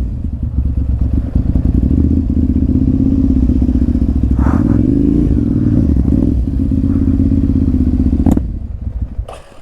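Ducati Monster 796's air-cooled L-twin engine running steadily as the bike is ridden, its pitch dipping and rising about halfway through, then the sound falls away sharply near the end.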